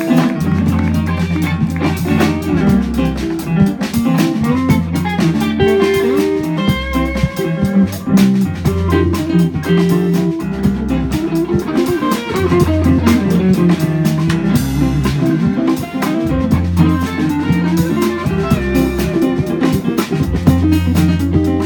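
Live band playing: electric guitar over a bass line and drum kit.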